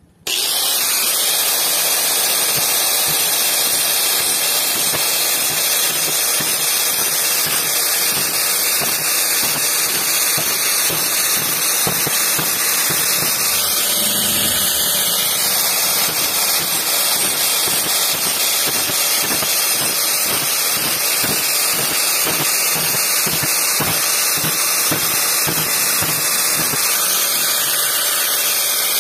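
Power tool fitted with an old tile cutting disc, grinding the teeth of a bandsaw blade to sharpen them. It makes a loud, steady hiss with many short, irregular knocks underneath.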